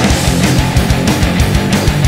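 Loud background rock music in a heavy-metal style, with guitar over a fast, steady drum beat.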